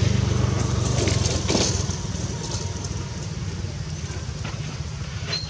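A motor vehicle's engine running, fading away over the first two seconds and leaving a low hum, with a few light clicks and a short high chirp near the end.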